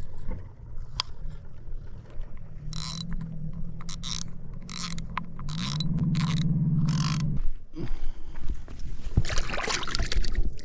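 Fishing reel being wound in after a cast: a run of short scratchy winding strokes, about two a second. Under it a low steady hum rises in pitch and stops suddenly about seven seconds in.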